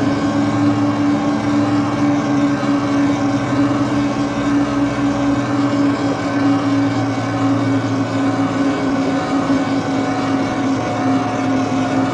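Electric bike's motor whining at a steady pitch while riding at a constant speed, over a steady rush of noise.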